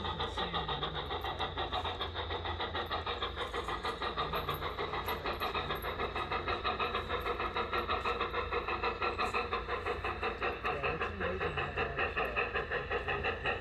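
Large-scale model Shay steam locomotive running along the track with a steady, rhythmic chuff of about four or five beats a second.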